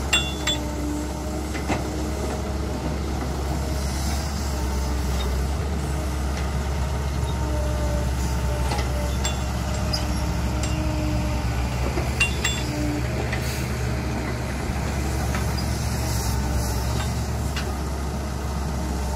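Cat hydraulic excavator's diesel engine running steadily as the machine digs and swings. A few sharp knocks, the clearest near the start and about twelve seconds in, as dirt and clods drop into the steel bed of a dump truck.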